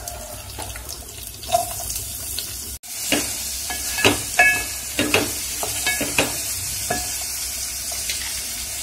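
Sliced onions sizzling in hot oil with cumin, mustard seeds and dried red chillies in a steel pot. A wooden spatula stirs them, knocking and scraping against the pot several times. The sizzle grows louder about three seconds in.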